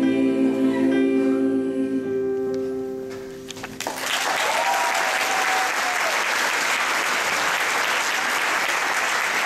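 Singers in close harmony holding the final sustained chord of a song, which fades away; just before four seconds in, the audience bursts into applause, with a voice cheering over it.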